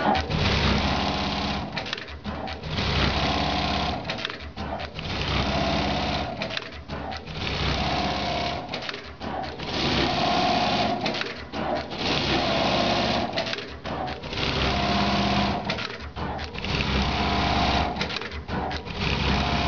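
Brother BAS-342GXL programmable pattern sewing machine stitching in short runs of about a second or more. Brief pauses between runs give a stop-start rhythm roughly every two seconds.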